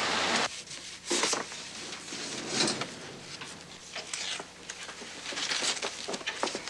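Steady rain hiss that cuts off about half a second in, then paper file folders being flipped through and handled, with scattered rustles and light clicks and a few sharper rustles.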